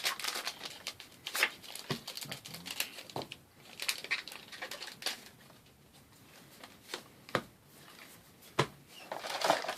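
Trading-card booster packs being handled: the foil wrappers crinkle and the cards rustle and click in short, scattered bursts, quieter for a few seconds in the middle.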